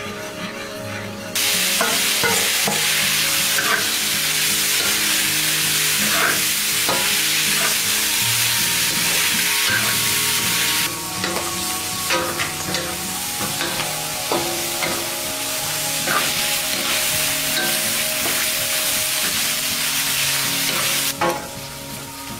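Food sizzling in hot cooking oil in a metal wok while a wooden spatula stirs and scrapes, with scattered clicks. The sizzle starts suddenly about a second and a half in, eases a little about halfway through, and falls away near the end.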